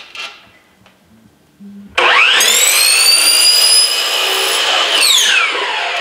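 Hitachi compound miter saw's motor starting about two seconds in with a rising whine and running while the blade cuts a 45-degree end on a ThermalBuck foam piece. About a second before the end the trigger is let go and the motor winds down with a falling whine.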